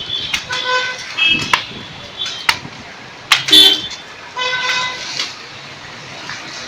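Several short vehicle horn toots from street traffic, with sharp clicks between them; the loudest is a click and toot about three and a half seconds in.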